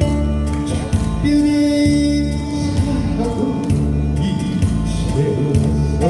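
A male trot singer sings live into a handheld microphone over a loud backing track with a steady beat, heard through a PA system.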